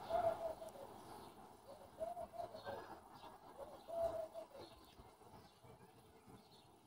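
A dove cooing: a handful of short, low, arched coos over the first four seconds or so.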